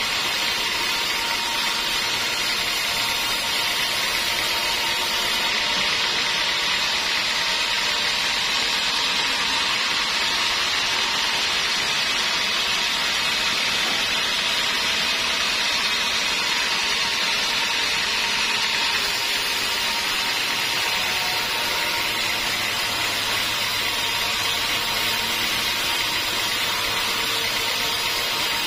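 Sawmill band saw cutting lengthwise through a squared teak beam, running steadily with an even sawing hiss and a thin steady whine.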